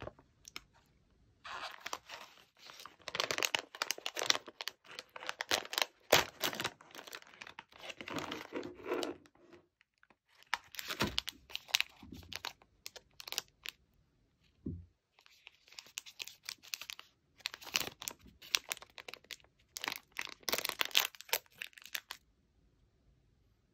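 Crinkly plastic snack packaging handled in bursts of rustling and crackling, and a clear plastic wrapper on a single biscuit being torn open.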